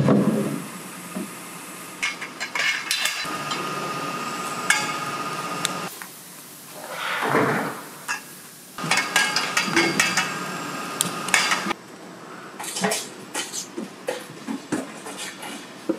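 Polished steel scraper handles clinking and clattering against each other as they are handled on a rack, many quick metal knocks with a short ringing after them, and a brief swish about seven seconds in.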